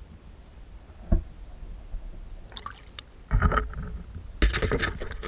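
An underwater camera lifted out of the water: a single knock about a second in, then water splashing and sloshing around the camera in two bursts as it breaks the surface.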